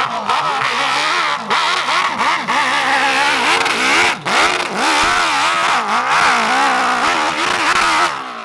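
A modified hill-climb motocross bike's engine revs hard, its pitch rising and falling steadily as it climbs the steep slope with the rear wheel throwing dirt. It cuts off suddenly near the end as the bike rears over backwards.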